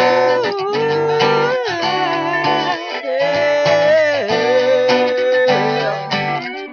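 Instrumental guitar music: a sustained lead melody with sliding, bending notes over guitar chords.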